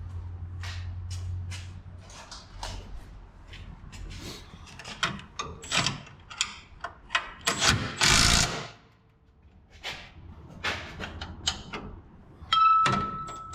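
Tools and metal parts being handled under a truck: a string of scattered clicks and knocks, a short loud hiss about eight seconds in, and a brief high whine near the end.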